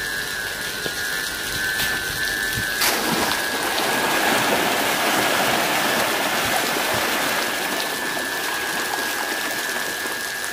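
Water churning and splashing as a crowd of hybrid magur catfish thrash at the surface of a concrete tank at feeding time; the splashing swells about three seconds in. A steady high whine runs underneath.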